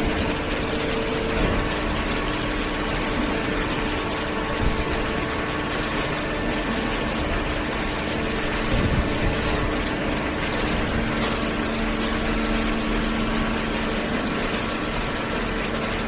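Automatic horizontal hydraulic paper baler and its feed conveyor running: a steady machine hum with a few held tones and an occasional light knock.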